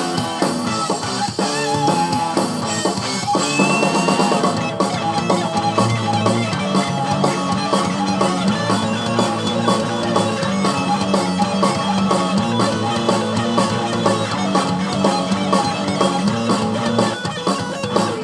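Rock music with electric guitar, bass and a steady drum-kit beat.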